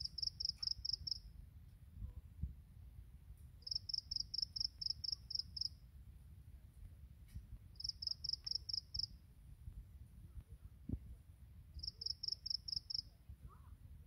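A grass insect chirping: four trains of rapid, evenly spaced high-pitched pulses, each one to two seconds long and a few seconds apart, over a low rumble.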